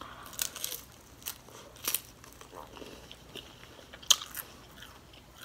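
Close-up crunching of a deep-fried shrimp egg roll being bitten and chewed: a series of sharp, crackly crunches of the fried wrapper, irregularly spaced, with the loudest about four seconds in.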